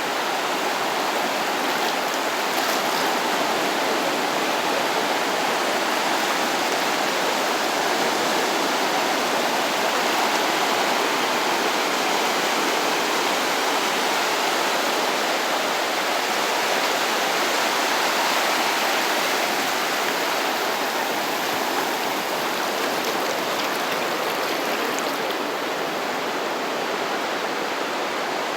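Small waves from a calm sea breaking and washing up on the shore: a steady rush of surf with only slight swells in loudness.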